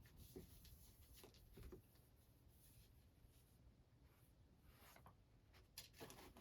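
Near silence with faint scratching and rustling, and a few light ticks near the end.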